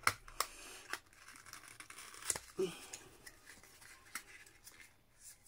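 Small cardboard box being opened by hand: light rustling and scraping of thin card, with a few sharp clicks as the tucked end flap is worked loose. The loudest click comes a little after two seconds in.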